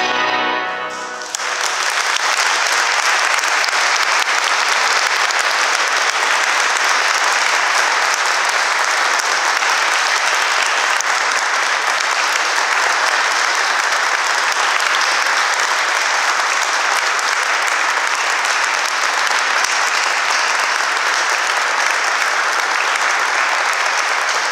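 A pipe organ's final chord dies away in about a second, ringing briefly in the room, and then an audience applauds steadily.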